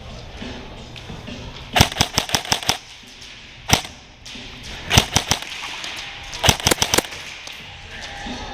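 Airsoft guns firing in short rapid bursts of sharp cracks: a string of about seven shots around two seconds in, a single shot near four seconds, and further short bursts around five and six and a half seconds.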